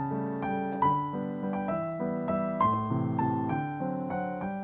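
Gentle solo piano music: a slow run of notes, each struck and left to fade.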